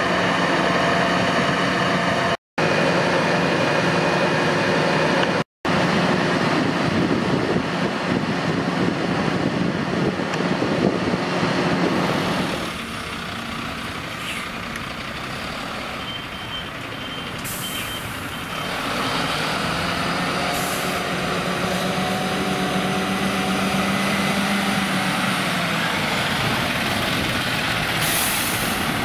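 A Mercedes-Benz fire engine's diesel engine running steadily at a standstill. Partway through, a reversing beeper sounds briefly, and its air brakes give short hisses as it turns across the road and drives past.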